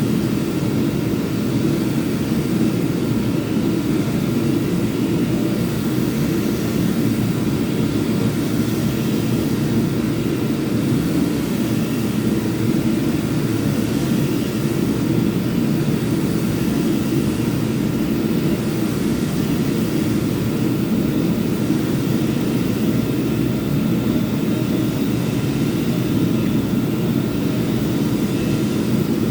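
Power sander running steadily and continuously, a constant motor and abrasive drone with a faint steady whine.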